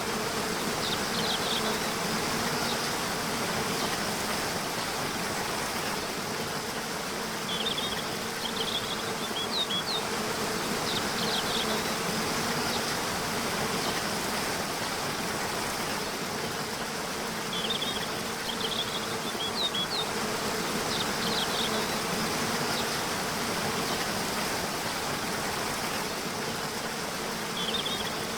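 Waterfall rushing steadily, with a low buzzing hum under it and short high birdsong phrases returning about every nine to ten seconds.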